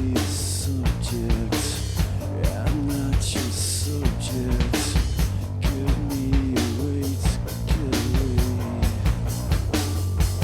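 Live rock band playing: a drum kit keeping a steady beat under guitar, with a wavering melody line above.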